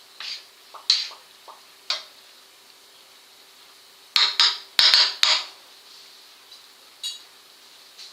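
A utensil clinking and scraping against a pan as softened pineapple pieces are stirred. A few scattered knocks, then a quick run of louder clatters about four to five seconds in, over a faint steady hum.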